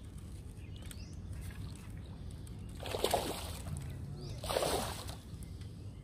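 Two short water splashes, about three and four and a half seconds in, as a hooked Nile tilapia is netted at the pond surface. Faint bird chirps sound over a low steady background rumble.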